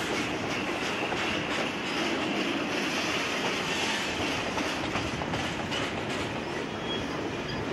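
Freight train of boxcars, tank cars and covered hoppers rolling past: a steady rumble of steel wheels on rail, with repeated clicks as the wheels cross rail joints.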